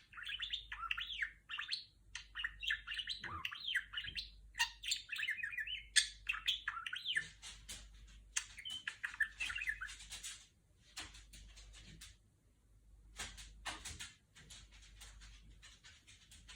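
Budgerigar chattering: a fast run of warbling chirps and gliding whistles, thinning after about ten seconds to scattered short clicks.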